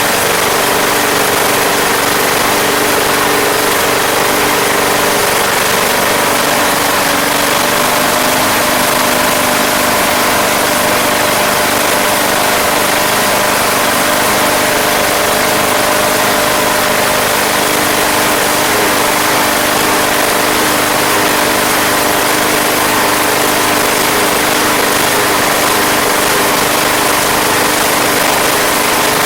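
Single-cylinder 190cc Briggs & Stratton engine on a Craftsman Platinum lawn mower running steadily and loudly, with an unchanging engine note.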